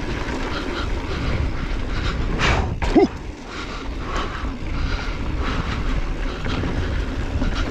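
2020 Specialized Enduro Comp mountain bike rolling fast down a dirt singletrack: steady wind rumble on the microphone with tyre noise on the dirt, and one short, sharp sound about three seconds in.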